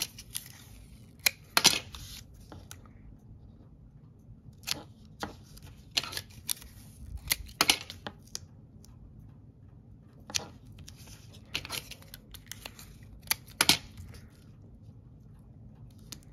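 Strips of double-sided tape being pulled and torn from a hand dispenser and pressed onto a small folded photo page, with paper handling. About a dozen short crackles and clicks come at irregular intervals.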